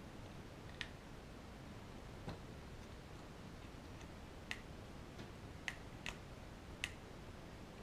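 Small hand tools clicking against the screw terminals of the locomotive's wiring as a wire is fitted into a terminal: about seven light, sharp clicks at irregular intervals.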